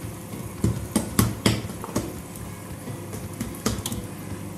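Kitchen utensils tapping and clinking on a countertop during dough work: a quick run of sharp knocks in the first couple of seconds, then one more near the end, over a steady low hum.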